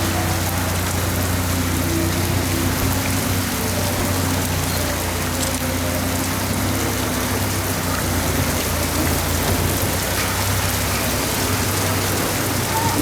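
Steady rain, with a low steady hum underneath.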